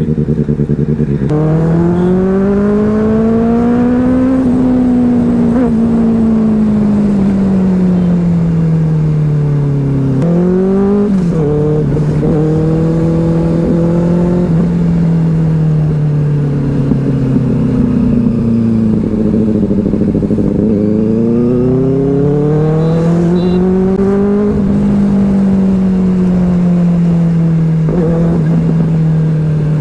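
Benelli 600i inline-four engine and exhaust heard from the bike while riding. The engine speed rises and falls gradually several times as it accelerates and eases off, with a quick sharp rise and dip about ten seconds in.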